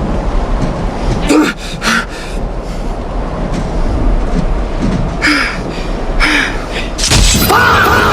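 Dubbed-in comedic sound effects over a steady noisy rumble: short sharp hits twice in the first two seconds and twice more about five and six seconds in, then a loud hit near the end that gives way to a pitched, music-like sound.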